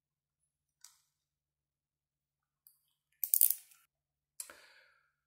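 A few sharp metallic clicks and clinks from small metal tools and a brass nozzle being handled, the loudest cluster a little past three seconds in, followed by a softer rattle.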